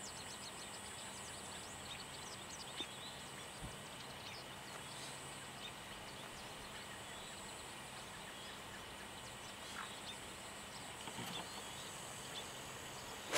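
Quiet open-air background with faint, scattered bird chirps. At the very end, a golf club strikes the ball in one short, sharp impact.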